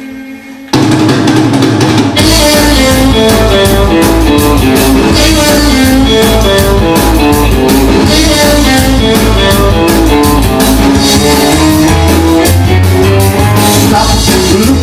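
Recorded rock and roll music: the last held chord of one song cuts to a new track under a second in, with a full band and a steady drum beat coming in about two seconds in.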